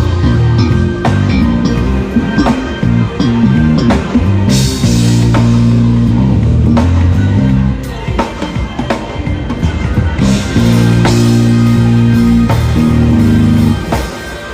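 Live band music: an electric bass playing held low notes that step in pitch, over a drum kit keeping time. Cymbals wash in about four seconds in and again about ten seconds in.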